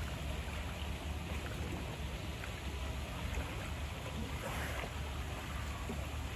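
Steady rushing of water in a sea lion pool over a low rumble, with a brief louder hiss about four and a half seconds in.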